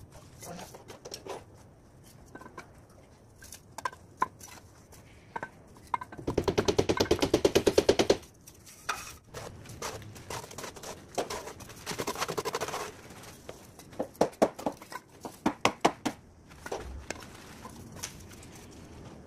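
Scattered knocks and taps from hand work with bricks and mortar in a flooded pit. About six seconds in comes a loud rapid rattle of about ten taps a second lasting two seconds, and later there are shorter clusters of clicks.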